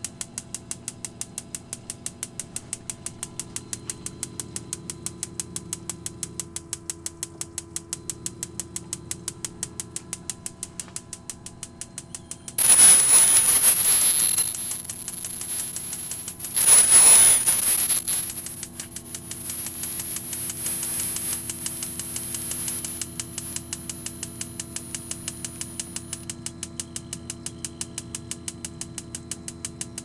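Electronic spark igniter of an HHO gas burner ticking steadily and rapidly, over a steady low hum from the running heater unit. Near the middle, two loud rushing noises about four seconds apart.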